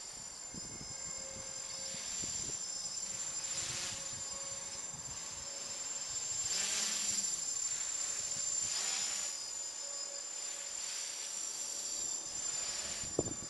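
Quadcopter's electric motors and propellers flying at a distance: a high buzzing whine that swells and fades several times as the throttle changes. Wind buffets the microphone underneath.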